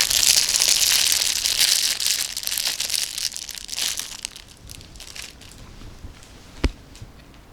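Plastic snack packaging crinkling and rustling as it is handled and opened, loud for the first few seconds and then fading. One sharp knock near the end.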